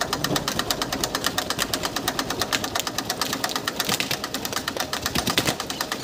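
A 1973 Yugoslav-made tractor's diesel engine idling, its exhaust chugging out of the open vertical stack in fast, even beats.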